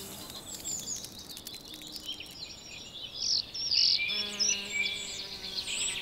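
Small songbirds chirping and warbling in quick, overlapping phrases, loudest and busiest a little past the middle. Soft sustained background music notes come in about two-thirds of the way through.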